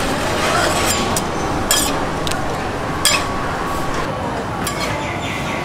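Metal spatula and flat scraper scraping and tapping on a round cast-iron crepe griddle as a crepe is folded: several short, sharp scrapes and clinks over steady background noise.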